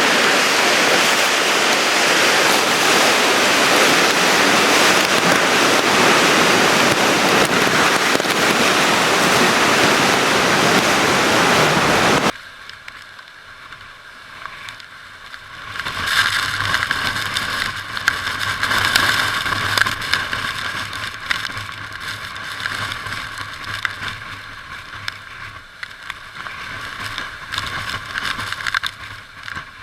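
Hurricane wind and rain roaring as loud, steady noise, cutting off abruptly about twelve seconds in. A much quieter stretch follows, mostly a steady high hiss with a faint low hum.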